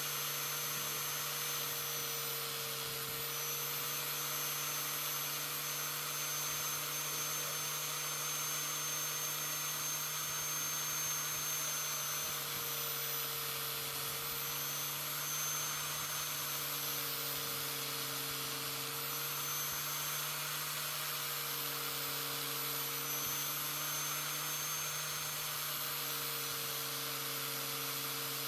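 Angle grinder, clamped in a vise, running steadily with a high whine over a hiss; its pitch sags slightly several times as a forged knife blade's edges are ground against it.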